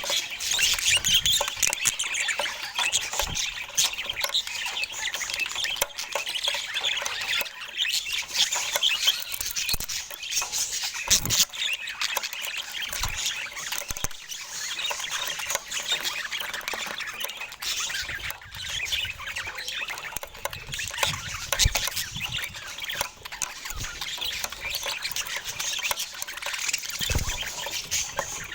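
Budgerigars chirping and chattering continuously, with scattered short low thumps.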